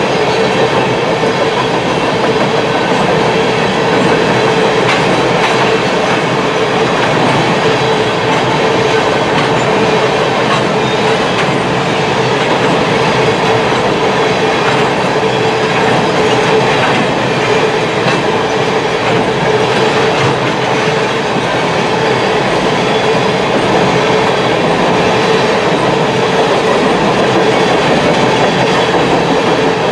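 Norfolk Southern freight train of tank cars passing at speed: the steady rumble and clatter of steel wheels on the rails, with a steady tone running through it.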